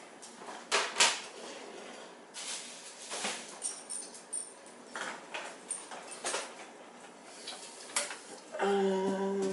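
Scattered knocks, clicks and clinks of dishes and kitchen utensils being handled. Near the end a steady pitched tone comes in and holds.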